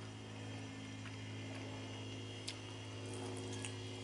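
Faint chewing and small mouth clicks from a man eating a barbecued baby back rib, over a steady low electrical hum.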